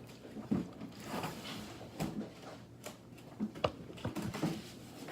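Scattered soft clicks and short rustles close to the microphone, with a sharper click about three and a half seconds in.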